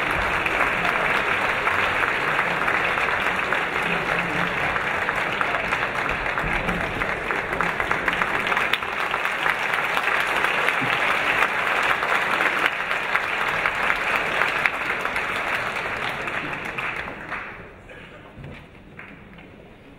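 Large opera-house audience applauding the conductor as he takes the podium, a dense, steady clapping that dies away about seventeen seconds in.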